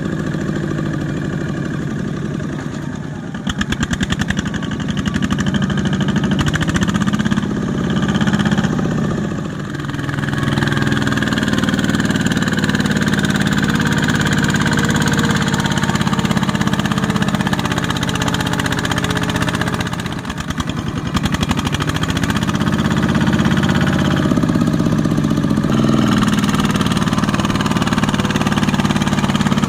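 Single-cylinder diesel engine of a two-wheel walking tractor working hard as it drags a loaded rice trailer through deep mud. The revs sag and pick up again several times, with a dip around ten seconds in and another around twenty seconds in.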